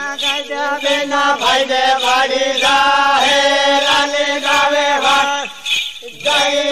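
A Rajasthani song: one voice singing long, held notes in a chant-like line with short bends between them, breaking off briefly near the end before singing again.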